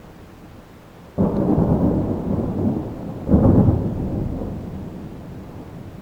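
Close thunder: a sudden crack about a second in, then a second, louder peal a couple of seconds later, dying away into a low rumble.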